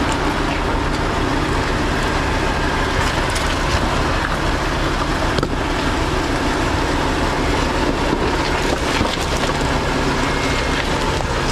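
Jeep Grand Cherokee driving on a rocky off-road trail: steady engine and tyre noise with scattered crunches and knocks from rock under the tyres, one sharper knock about halfway through.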